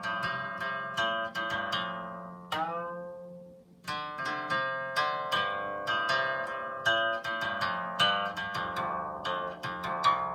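Chinese zither playing a run of plucked notes that ring and fade. About two and a half seconds in, one note is bent downward in pitch as it rings, and after a short pause near four seconds the plucking resumes.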